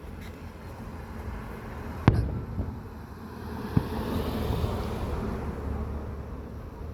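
Fireworks going off: one sharp bang about two seconds in and a softer one nearly two seconds later, over a steady low rumble and a hiss that swells in the middle.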